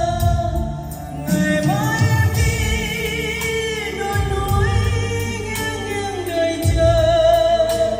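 Music with a singing voice over a steady bass beat.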